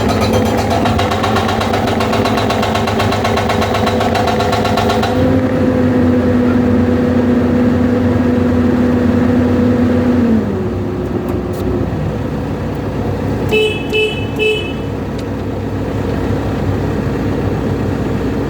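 Excavator's hydraulic breaker hammering rapidly for about five seconds, then stopping while the diesel engine runs on with a steady hum that drops lower about ten seconds in. Three short horn toots come about two-thirds of the way through.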